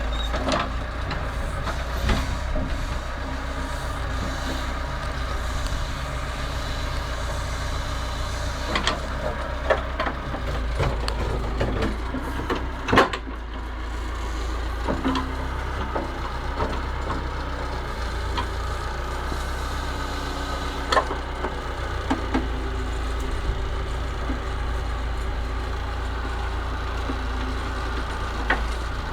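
Massey Ferguson 50HX backhoe's diesel engine running steadily, with scattered sharp knocks and clanks; the loudest comes about halfway through.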